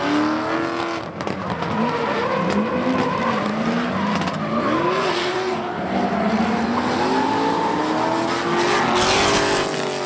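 Drift cars in a tandem run: engines revving hard, their pitch swooping up and down with the throttle, over squealing tyres. About nine seconds in, the tyre noise swells into a louder burst.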